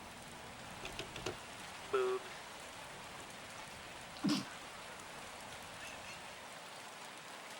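A steady rain-like hiss runs under looped TV dialogue audio. A few faint clicks come about a second in, and a short voiced sound with a low rising pitch comes just past the middle, about as loud as the single spoken word before it.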